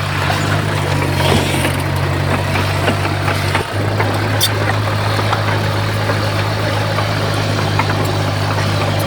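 Heavy diesel engine of earthmoving machinery running steadily at constant speed, with a brief dip about three and a half seconds in.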